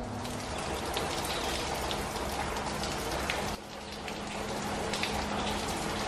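Steady downpour of rain, heard from under a porch, with a brief dip in level about three and a half seconds in.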